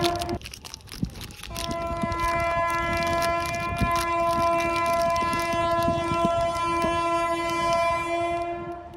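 A train horn sounding one steady note: a blast that stops just after the start, then after about a second's pause a long held blast of about seven seconds that cuts off suddenly near the end.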